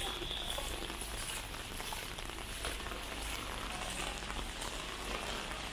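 Steady heavy rain falling on a city street, a dense patter of drops hitting the pavement and nearby surfaces.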